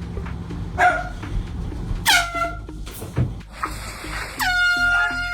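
A dog barks once, then a horn blasts twice: a short blast about two seconds in that slips down in pitch, and a longer steady blast starting about four and a half seconds in.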